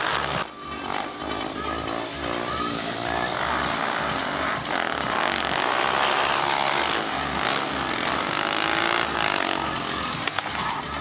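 Yamaha FZ's single-cylinder engine revving during a wheelie, its pitch rising and falling as the throttle is worked.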